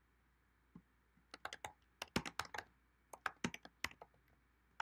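Typing on a computer keyboard: a quick run of key clicks starting about a second in, after a quiet moment.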